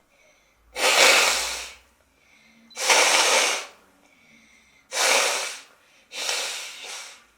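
A woman sneezing four times in a row, each sneeze about a second long, with quick in-breaths before each one.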